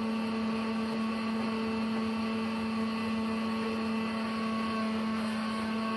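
Sawmill machinery running steadily: a constant mechanical hum with one strong steady tone and fainter higher tones, unchanging throughout.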